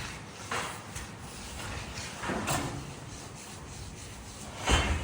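A hand finishing tool scraping over fresh concrete in a few separate rough strokes, the loudest and sharpest near the end.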